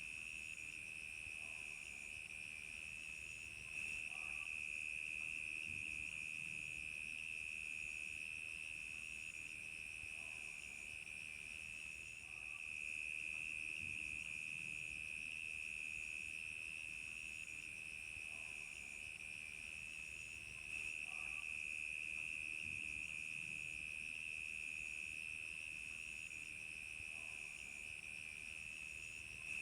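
Crickets chirping in a steady, continuous trill, with a fainter, higher-pitched insect call pulsing a little under once a second.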